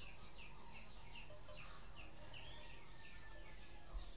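Faint chirping of a small bird: short high chirps repeating about three times a second over low background hiss, with a light click near the end.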